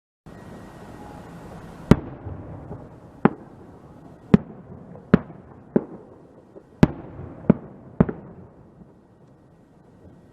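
Pepper bomb firecrackers going off one after another: about eight sharp bangs at uneven intervals over some six seconds, over a low, steady background noise.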